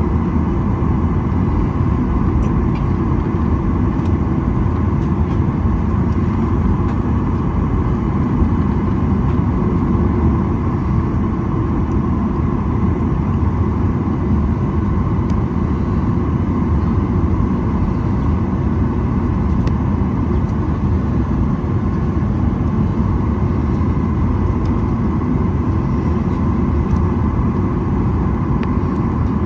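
Steady cabin noise inside a Boeing 737-900ER on the ground before takeoff: the CFM56-7B engines running at low power with air-conditioning hiss, a constant low rumble with a steady mid-pitched hum. The level stays even throughout.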